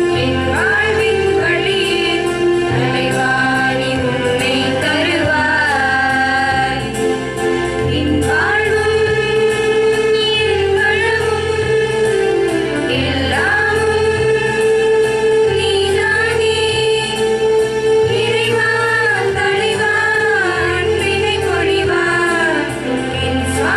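A women's choir singing a devotional song together, amplified through a microphone, over a low held backing that changes about every two seconds.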